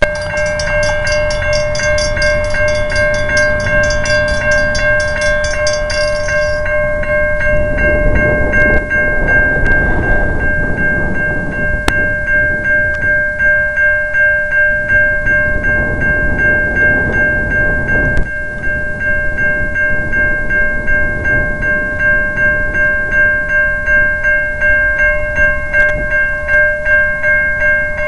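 Railroad grade-crossing warning bell ringing continuously with evenly repeated strokes, over the low rumble of an approaching train.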